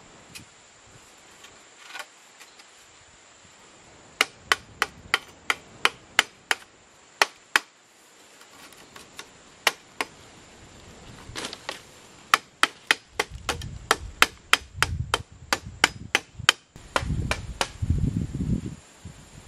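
A hand tool striking wood in sharp, quick blows, about three a second in a first run and faster in a second, with duller low thumps near the end.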